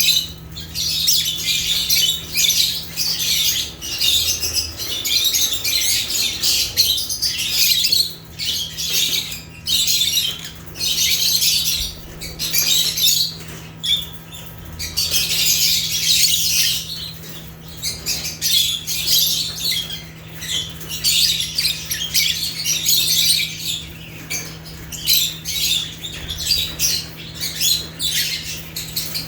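Several lovebirds (Agapornis) chattering and squawking in dense, high-pitched bouts that break off briefly every few seconds.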